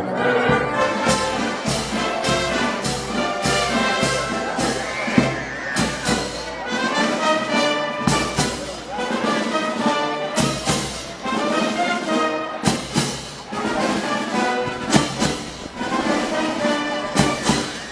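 Brass band music, trumpets and trombones over a steady drum beat, the kind of band music played at Moros y Cristianos parades.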